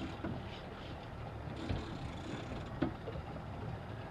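Sportfishing boat's engine running steadily with a low rumble, with a single sharp knock a little before three seconds in.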